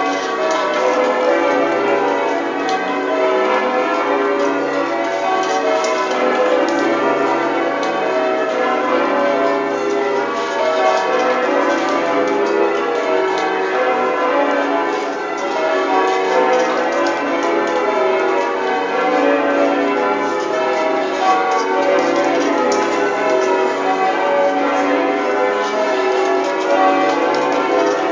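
Change ringing on a ring of twelve tower bells with a 42 cwt tenor in B. The bells are struck one after another in a rapid, unbroken stream of overlapping ringing tones.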